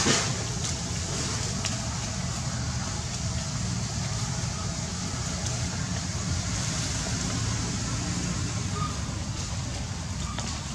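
Steady outdoor background noise, a low rumble with a hiss over it, and a brief knock right at the start.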